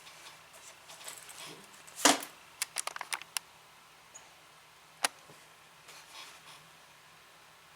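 Clicks and a knock from small hard objects being handled, with light rustling: one sharp knock about two seconds in, a rapid run of clicks just after, and a single click near the middle.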